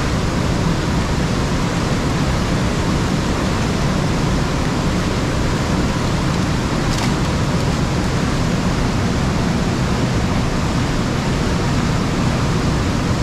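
Steady, loud rush of fast-running creek water.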